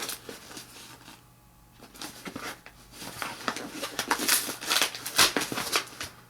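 Packaging being handled and unwrapped: a busy run of rustles, crinkles and sharp clicks, starting about two seconds in after a brief lull.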